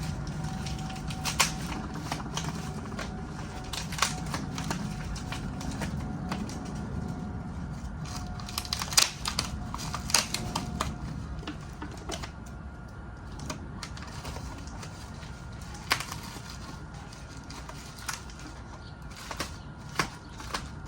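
Packaging being opened and handled by hand, a steady rustle with scattered sharp clicks and taps, a few louder ones around the middle.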